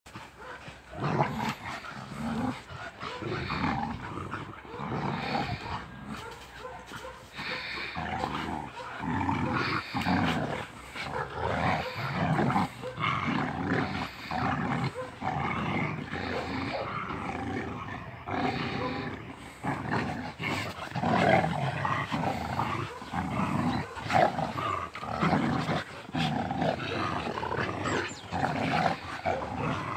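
Two Rottweilers growling in play as they pull against each other in a tug-of-war over a rope, a rough, near-continuous growl in irregular pulses.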